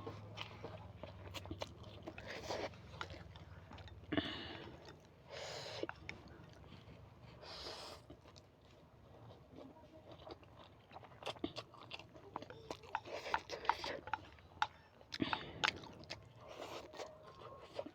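Close-miked mouth sounds of a person eating spicy instant noodles: chewing with many small wet clicks, and several longer noisy slurps.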